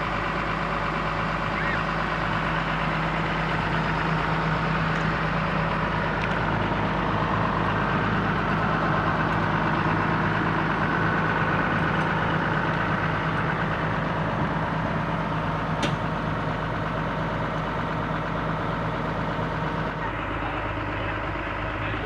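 Komatsu PC200 excavator's diesel engine running steadily at idle, its repaired alternator now charging the battery. A single short click sounds about two-thirds of the way through.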